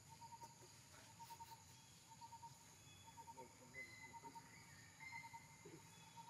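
Near silence: faint outdoor ambience with a small creature chirping in short pulsed runs over and over at one steady pitch.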